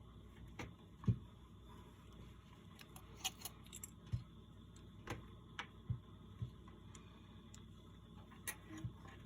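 Scattered light clicks and taps of soldering work at the bench, about a dozen at uneven intervals, the sharpest about a second in, over a faint steady hiss.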